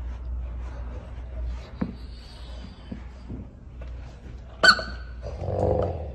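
A basset hound gives a short vocal sound lasting under a second near the end, just after a sharp click, over a steady low hum.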